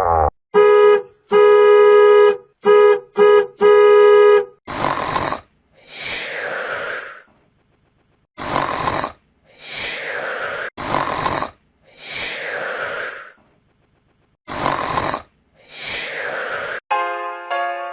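A buzzy, horn-like tone in five short blasts, then a cartoon-style snoring effect: a short harsh breath in and a longer breath out falling in pitch, repeated about four times.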